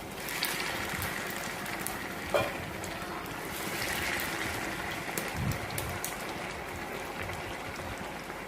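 Hot oil sizzling and crackling steadily as vermicelli-coated chicken balls deep-fry, with one light knock about two and a half seconds in.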